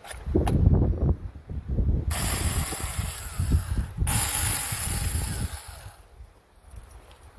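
Cordless battery chainsaw cutting into a branch in two runs of about two seconds each, with a sharp start and a brief stop between them. A low, buffeting rumble sits underneath and is loudest in the first second.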